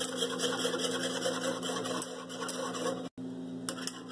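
Wire balloon whisk clicking and scraping against a saucepan while stirring gelatin powder into hot milk, quick irregular ticks over a steady low hum. The sound drops out briefly about three seconds in.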